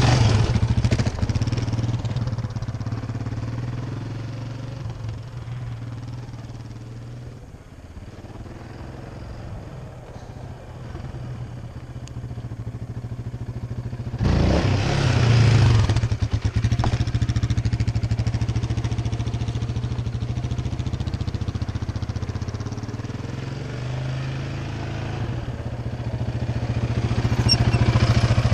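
Yamaha Raptor 700R quad's single-cylinder engine running under throttle as it rides about: loud at first, fading as it moves away, loud again about halfway through as it comes close, and building again near the end.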